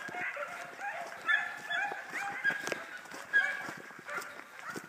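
A pack of hounds baying on a chase, many short overlapping yelps and bawls from several dogs at once.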